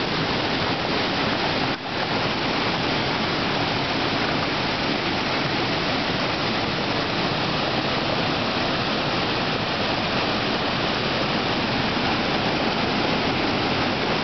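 Waterfall pouring over rock ledges into a pool: a loud, steady rush of falling water, with a momentary dip about two seconds in.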